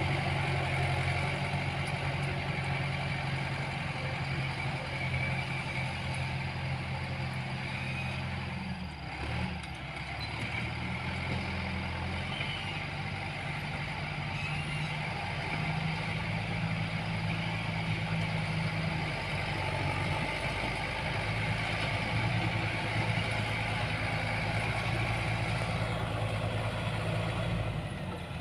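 Diesel engine of a heavy road-construction machine running steadily, its low engine note dipping briefly about nine seconds in before settling again.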